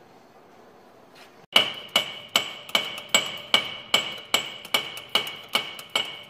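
Steady hammer blows on steel, about two and a half a second, each one ringing, starting about a second and a half in. They are driving a rusted-on driveline part, the U-joint yoke on the transmission shaft, loose.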